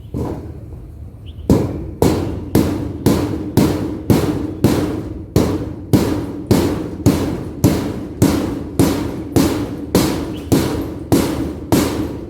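Hammer blows at a steady pace of about two a second, each with a short metallic ring, as nails are driven through tin sheets into the shed's wooden poles.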